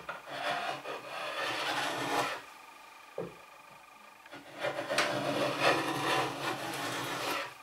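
Metal hand plane taking two long strokes along a bevelled wooden edge, the blade shaving the wood, with a short knock in the pause between the strokes.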